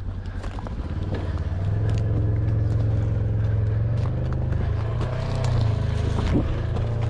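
Side-by-side UTV engine running as the vehicle drives away up a rough dirt slope, its drone growing stronger about a second and a half in. Footsteps on dry dirt and brush tick over it.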